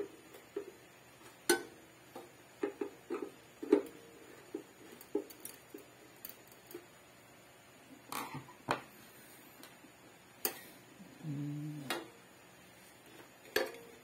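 Sharp clicks and light metal knocks at irregular intervals from a screwdriver and hands working on a microwave oven's magnetron mounting.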